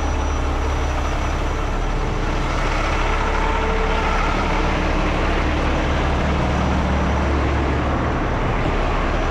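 Heavy diesel truck engine idling steadily with a deep, even rumble.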